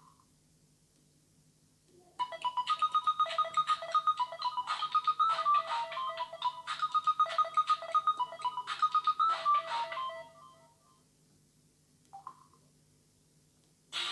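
LG KS360 mobile phone playing a ringtone through its small loudspeaker: a quick melody of rapidly repeated electronic notes lasting about eight seconds, then fading out. A short beep sounds at the very start and another near the end.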